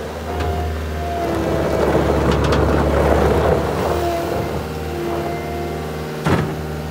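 CAT 262C skid steer loader running and maneuvering on gravel: a steady engine drone with whining tones that shift in pitch as it drives. A rougher, louder stretch runs from about one and a half to four seconds in, and one sharp knock comes about six seconds in.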